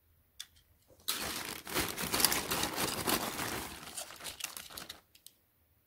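Thin plastic bag crinkling and rustling as hands rummage through it to pull out a diecast toy car. It starts suddenly about a second in and tapers off over the next four seconds.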